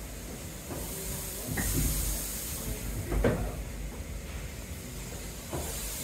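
1861 West Point Foundry steam engine of a sugar-cane mill running slowly: steam hissing, swelling about a second in, with a knock from the machinery about every one and a half to two seconds.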